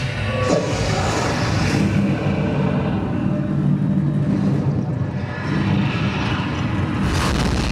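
Multimedia dome show's soundtrack over its speaker system: a loud, deep rumble with sustained low tones, swelling again near the end.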